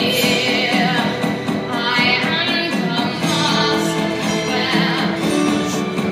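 A girl singing with vibrato, accompanied by a live orchestra with strings.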